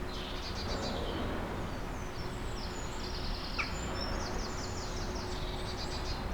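Woodland songbirds singing high trills and quick repeated phrases, several voices overlapping, over a steady low rumble of traffic and road works with a faint steady hum.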